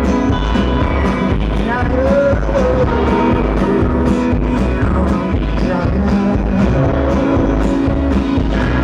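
Live rock band playing with guitar, bass and a steady drum beat of about two hits a second.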